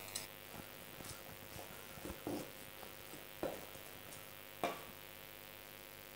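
Butcher's knife cutting down through ram meat and fat and tapping the wooden chopping block: a handful of soft knocks, the sharpest about three and a half and nearly five seconds in.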